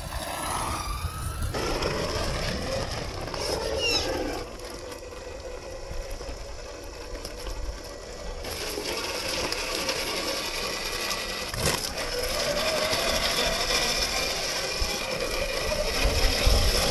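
Tamiya Bruiser RC truck's electric motor and three-speed gearbox whining as it drives, rising in pitch as it speeds up a few seconds in, over the crunch of its tyres on gravel. A single sharp knock comes about twelve seconds in.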